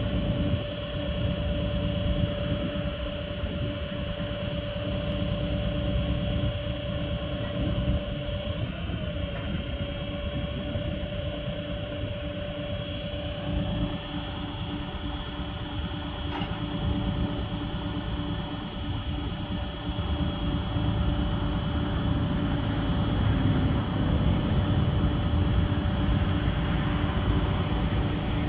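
The truck's 6.7-litre Cummins six-cylinder diesel running steadily, a deep rumble with a steady whine above it. The sound shifts slightly about 14 seconds in and grows a little louder in the last third.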